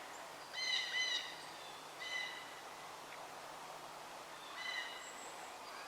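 Bird calling in the woods: three short, clear calls, each of several steady pitches sounding together, about a second in, two seconds in and near the end, over quiet outdoor background.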